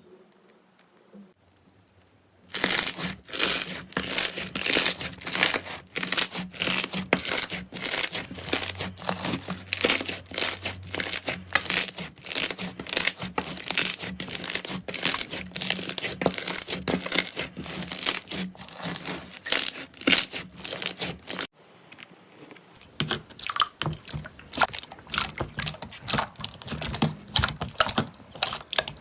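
Slime being worked by hand, giving dense, rapid crackling and popping after a couple of seconds of near quiet. It cuts off abruptly about 21 seconds in, and softer, sparser crackling follows.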